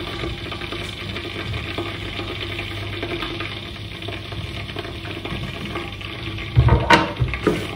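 Kitchen work: a steady hiss runs throughout, and a few loud knocks and clatters of cookware come near the end.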